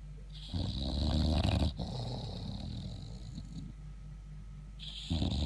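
English bulldog snoring loudly in its sleep: two loud snoring breaths, one about half a second in and another near the end, with a quieter breath between them.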